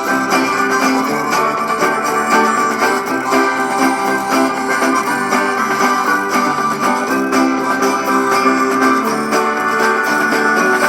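Background music led by plucked guitar, played at a steady level.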